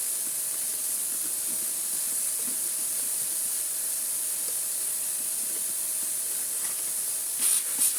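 A vacuum cleaner running: a steady, high air hiss from the suction with a faint steady whine under it. A few short clatters come near the end.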